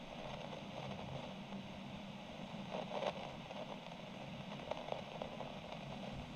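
Steady hiss of a quiet room recorded at high gain, with a few faint crackles about three seconds in and again near five seconds.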